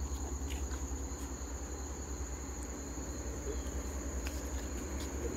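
Insects in the woods giving one steady, unbroken high-pitched drone, with a low rumble underneath and a few faint clicks.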